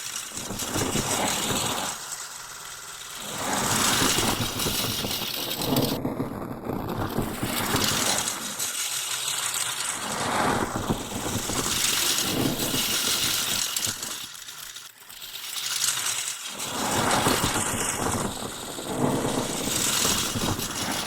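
Designed plastic sound effect sequence: crinkling, rustling and creaking plastic that has been layered, morphed and spectrally shifted into a dense glitchy texture, swelling and dipping every few seconds.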